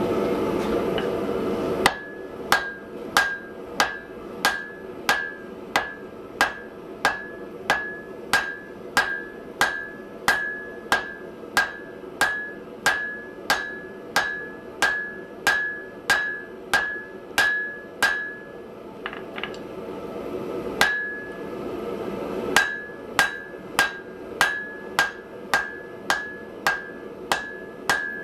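Hand hammer striking a glowing block of wrought iron on the anvil, about one and a half blows a second. Each blow rings clearly off the anvil. There is a steady rushing noise before the blows start, and the hammering pauses for a few seconds in the middle before resuming.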